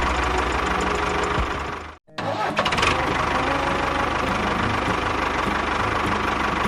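A small engine running steadily with a fast, even knocking beat. The sound cuts out suddenly for a moment about two seconds in, then carries on the same.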